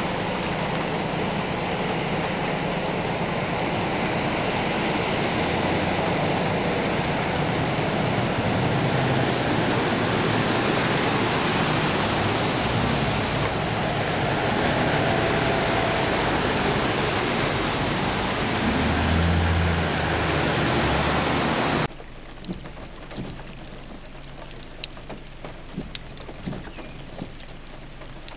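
School buses and cars driving through deep floodwater: a steady rush of water spray with low engine hum underneath. A little over twenty seconds in, this cuts off abruptly to quieter steady rain with scattered drips.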